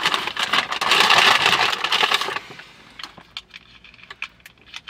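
Loud crinkling and rustling of paper food packaging while a hand rummages through it for about two and a half seconds, then scattered lighter crackles and clicks as a small plastic sauce container is handled.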